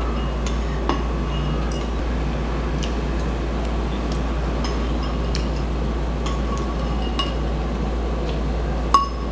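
Metal spoon and fork clinking and scraping against a bowl while eating, sharp little clinks scattered through, the loudest near the end. Under them runs a steady low room hum.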